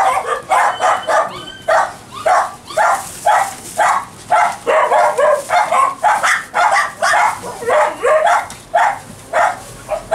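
Dogs barking over and over in quick succession, about two to three sharp barks a second.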